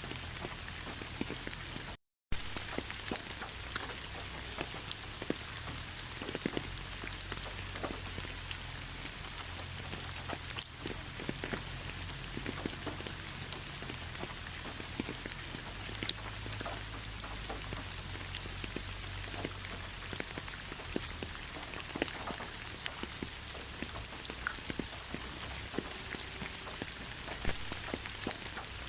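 Steady rain falling, a dense hiss with many individual drops ticking close by on a surface. The sound cuts out completely for a split second about two seconds in.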